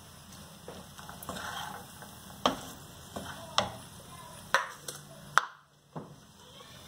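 Wooden spatula stirring cooked rice in a frying pan, scraping, with several sharp knocks of the spatula against the pan.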